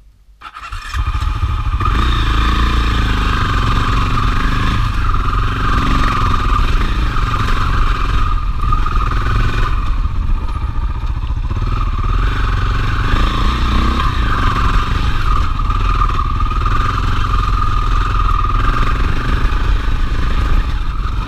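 KTM 640 Adventure's single-cylinder engine running as the motorcycle is ridden off. The sound comes up sharply about a second in and then holds steady and loud.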